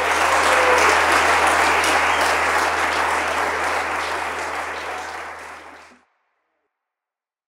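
Theatre audience applauding, fading away and stopping about six seconds in.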